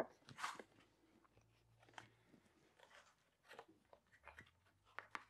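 Near silence with faint, scattered crackles and light clicks of hands handling the potted grapevine and the bamboo canes beside it, and a faint low hum that comes and goes.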